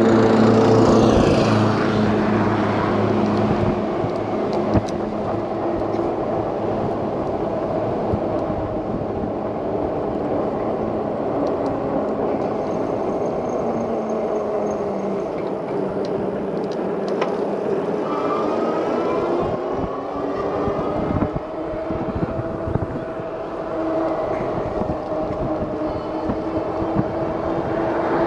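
Steady road noise heard from a moving electric bike, with motor vehicles passing. An engine hum fades out in the first couple of seconds, and rising and falling engine tones of passing traffic come later.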